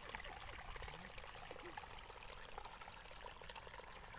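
Faint, steady trickle of shallow water running through a small earthen channel in the soil, with many tiny splashing ticks.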